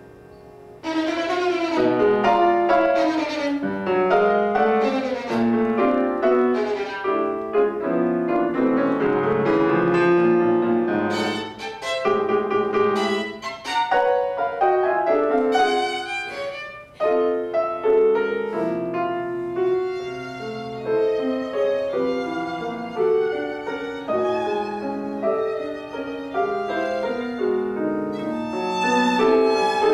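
Violin and grand piano playing together in a live classical duo, entering loudly about a second in after a quiet moment and running on in busy, fast-moving passages.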